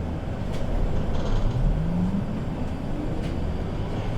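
Moscow Metro 81-775 «Москва-2020» train pulling away from a station, heard inside the car: a low rumble under a whine from the traction drive that rises in pitch as the train accelerates, with two short clicks.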